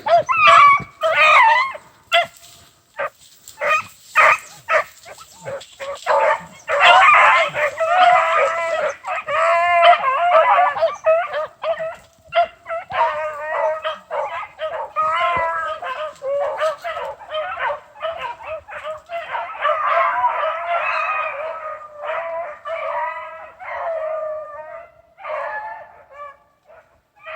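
A pack of rabbit hounds baying and bawling together as they run a rabbit's scent trail, the calls overlapping almost without a break and thinning out near the end.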